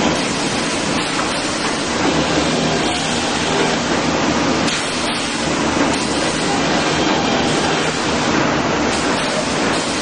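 Sawmill production line running: powered roller conveyors and chain transfers moving and turning wooden cants, a steady loud machinery noise with a low hum underneath.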